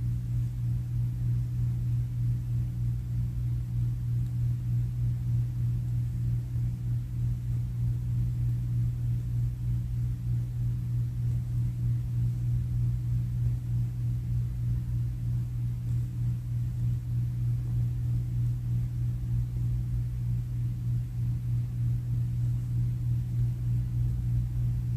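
Steady low hum with a faint hiss and no other distinct sounds.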